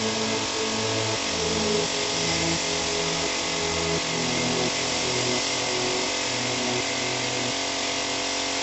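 Compressed air hissing steadily through a gravity-feed paint spray gun laying down clear coat on a car door, with a low hum underneath.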